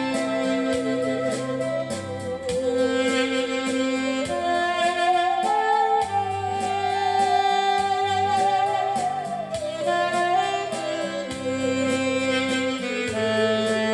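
Musical saw playing a slow melody with a wide, even vibrato over a backing track of chords, bass and a steady beat. The saw line climbs about four seconds in, holds high, and slides back down around ten to eleven seconds.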